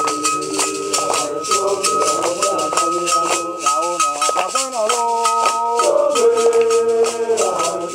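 A group of voices singing a chant over a steady beat from a hand rattle.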